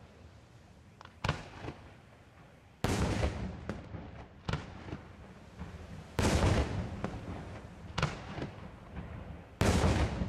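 Fireworks display: aerial shells bursting, each a sudden heavy bang with a rolling echo. The three loudest come about three and a half seconds apart, with smaller reports in between.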